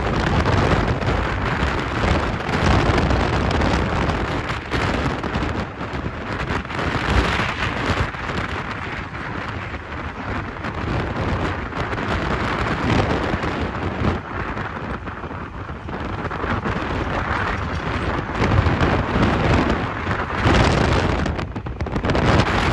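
Loud wind rushing over the microphone, rising and falling every few seconds, over the low rumble of a vehicle on the move.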